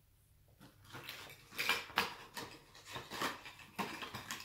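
Christmas ornaments and their packaging being handled: irregular rustling with light clicks and knocks, after about a second of near quiet.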